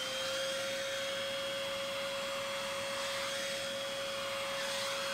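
FruSun 7-in-1 pet grooming vacuum running at its second fan speed, a steady whine over the hiss of suction through its clipper hose. The pitch lifts slightly right at the start as the fan comes up to speed, then holds steady.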